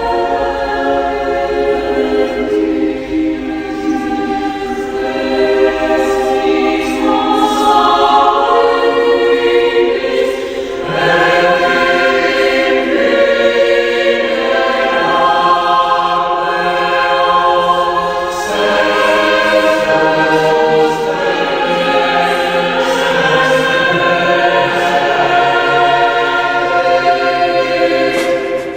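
Choral music: a choir singing long held chords that change every few seconds.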